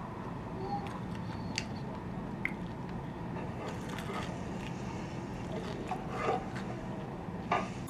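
Steady low background rumble with a scattering of small clicks and taps, a little busier about six seconds in.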